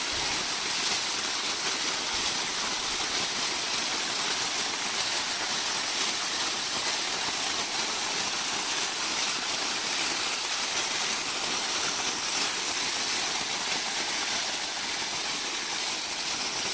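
Water gushing steadily out of an irrigation pipe outlet in a tall jet and splashing down, pumped by a 10 HP submersible motor: a constant rushing spray.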